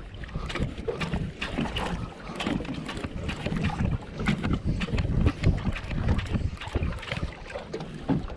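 Wind buffeting the camera microphone, heard as a gusting low rumble, with water lapping against a boat at sea. Irregular clicks and knocks run throughout.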